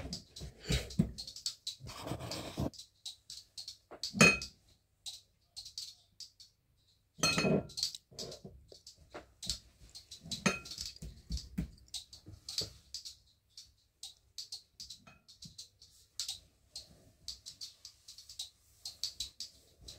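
Scattered clinks and taps of glass bottles and kitchenware, with two louder knocks that ring briefly, about four and seven seconds in.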